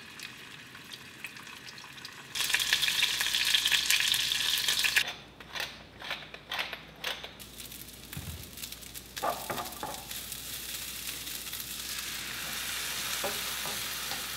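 Food frying in hot oil in a pan: a stuffed chicken roll sizzles, loudest for a few seconds from about two seconds in. Then a wooden spoon stirs rice and onion as they toast in oil, with several stirring strokes and then a steady sizzle that slowly grows.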